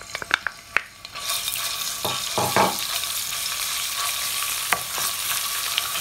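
Ginger garlic paste frying in hot oil in a stainless steel pot, breaking into a steady sizzle about a second in, while a wooden spatula stirs it around the pot.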